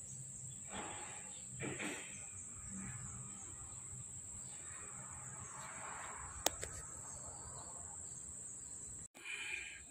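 Steady, high-pitched insect trill in the background, with a few faint rustles and a single sharp click about six and a half seconds in.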